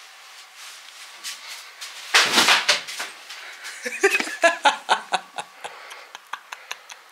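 A woman laughing in a run of short, quick bursts, starting about two seconds in and going on to the end.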